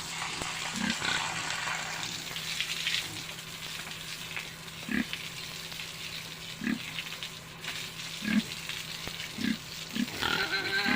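Pigs grunting: a handful of short, low grunts a second or two apart, over a steady hiss.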